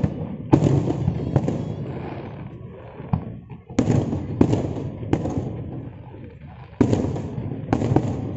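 Aerial fireworks shells bursting in a display: a run of sharp booms every second or so, each followed by a low rolling rumble that dies away, with a short lull in the middle.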